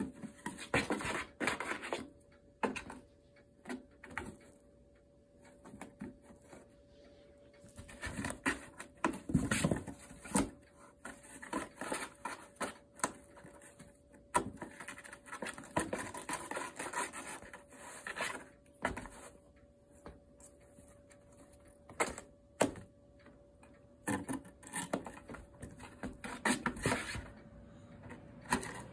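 Kittens scrabbling in a cardboard box: irregular bursts of claws scratching and scraping on the cardboard, with sharp knocks here and there.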